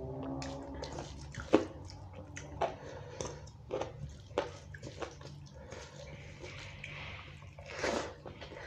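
A hand squeezing and mixing bhuna khichuri rice with chicken curry on a steel plate: irregular wet squishes and sticky clicks, with a louder burst of mouth and eating sounds near the end as a handful is eaten.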